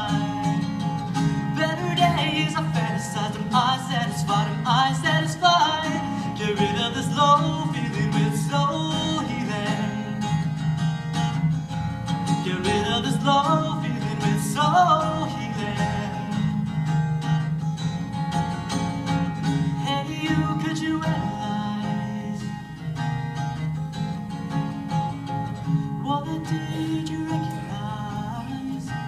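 Acoustic guitar strummed with a man singing into a microphone, a solo voice-and-guitar performance; the voice drops out about halfway through and the guitar carries on alone.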